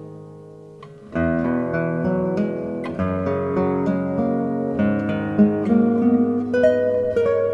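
Background music on acoustic guitar: a chord rings and fades, then a new plucked phrase of single notes and chords begins about a second in.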